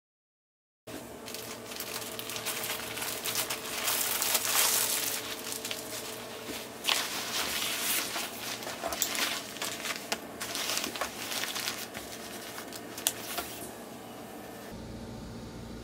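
Foam changing pad being handled and pressed down onto the wooden top shelf of a changing table: rustling and crinkling with scattered sharp clicks and knocks. It starts about a second in and gives way to a steady low hum near the end.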